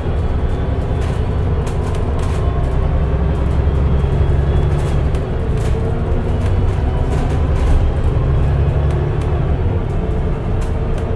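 Mercedes-Benz O405NH midi bus with a Voith automatic gearbox running under way: a steady low engine drone with a faint whine that rises and falls in pitch, and occasional rattles.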